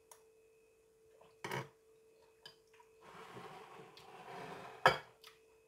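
Tableware sounds during a meal: a few sharp clicks of a spoon and dishes, a rustling scrape about three seconds in and a louder knock near the end as the plate is handled, over a steady faint hum.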